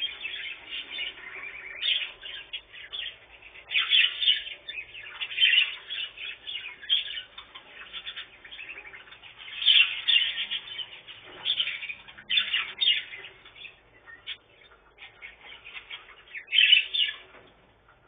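Budgerigars chattering: a continuous run of high chirps and warbles, with louder bursts of sharp calls several times.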